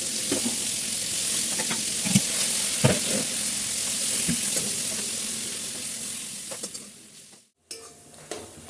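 Food frying and sizzling in a pan, with a spoon or spatula knocking and scraping against the pan now and then as it is stirred. The sizzle cuts off suddenly about seven and a half seconds in.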